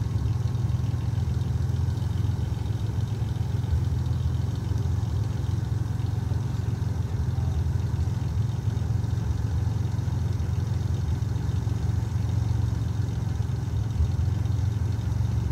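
A vehicle engine idling steadily: an even, low hum that does not change in pitch.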